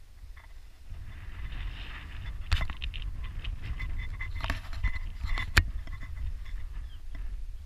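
Wind buffeting an action camera's microphone as a low, uneven rumble, with a few sharp clicks or knocks, the loudest about two and a half and five and a half seconds in.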